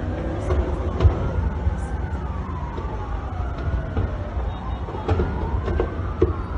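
Several emergency-vehicle sirens wailing at once, their pitches slowly rising and falling and overlapping, over a steady low rumble, with a few sharp cracks.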